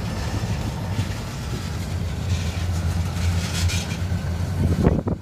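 Freight train cars rolling past at trackside: a steady low rumble of wheels on rail under a noisy haze. A brief louder burst comes near the end.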